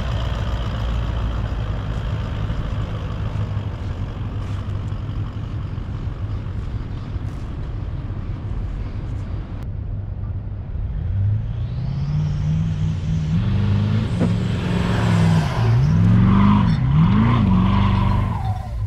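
Toyota LandCruiser 200 series V8 engine driving up a soft sand dune track: a steady low running at first, then revving hard under load. Near the end the revs dip and rise twice as the tyres spin and throw sand.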